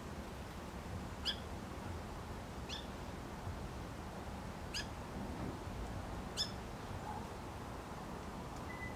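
A small songbird giving four short, sharp chip calls, about one and a half seconds apart, over a steady background hiss.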